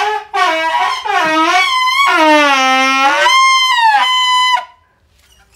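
Plastic toy trumpet blown hard, a blaring, wavering run of bending notes that dips low and then jumps to a higher held note. It cuts off suddenly about four and a half seconds in.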